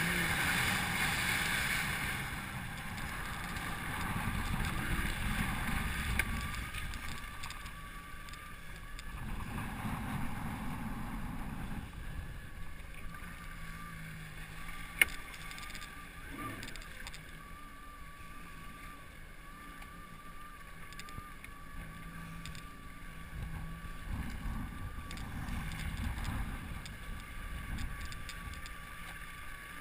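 Wind buffeting the microphone and water rushing and splashing over open water, swelling and easing every few seconds, with a faint steady wavering whine under it. One sharp click about halfway through.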